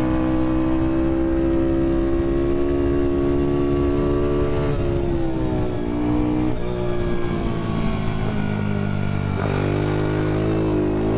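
A 110cc Ohvale automatic minibike's engine held at high revs, dipping briefly in pitch a few times as the throttle is eased and picking back up.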